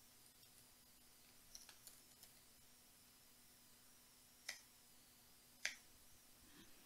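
Near silence with a faint steady hum, a few faint computer keystrokes about two seconds in, then two sharper computer clicks about a second apart.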